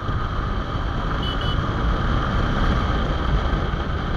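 Honda Hornet 2.0 motorcycle on the move: wind rushing over the microphone above the engine's running note. Two short high beeps come a little over a second in.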